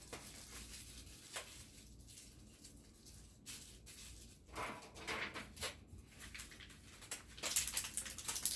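Thin disposable plastic food containers being handled: quiet rustling with a few soft clicks, then a run of sharp plastic crackling near the end.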